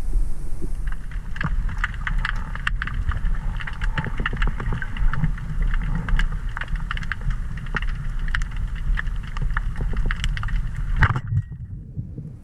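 Underwater sound picked up by a diver's camera: a steady low rumble of water moving past the housing, with a scatter of sharp clicks and crackles. A single louder knock comes about eleven seconds in, after which the higher sounds drop away.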